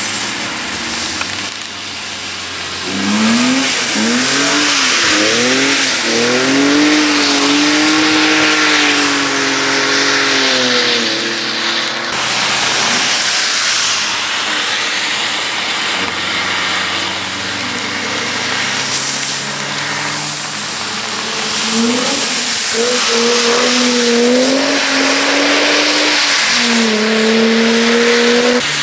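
Cars driven hard on a wet track passing one after another, their engines revving and pulling through the corner with the pitch rising and dipping on the throttle, over a steady hiss of tyres throwing spray off the wet tarmac.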